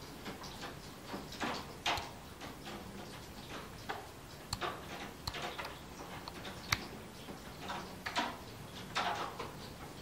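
Scattered faint clicks and taps from a Hytera BP-series two-way radio being handled while its channel is changed, with a few brief rustles of handling.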